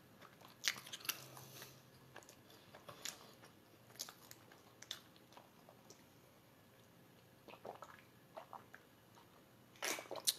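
Faint swallowing and small wet mouth clicks from a person drinking from a can, coming as scattered single sounds, with a few louder clicks near the end.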